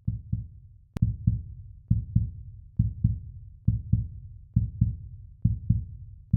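Heartbeat sound effect: steady paired lub-dub thumps, a little more than one beat a second. A single sharp click comes about a second in.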